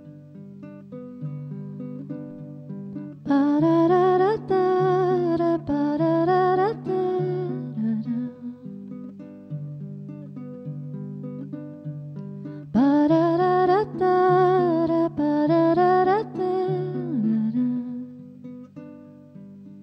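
Baritone ukulele picked in a slow, steady pattern, with two long wordless vocal phrases sung over it, the first about three seconds in and the second about thirteen seconds in.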